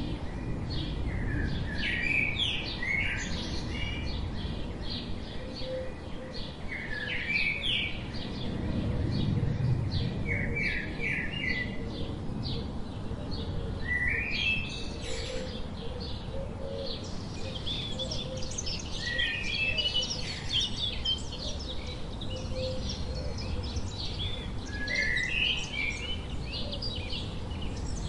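Sparrows chirping in quick series of short, high chirps, with a steady low rumble of background noise underneath.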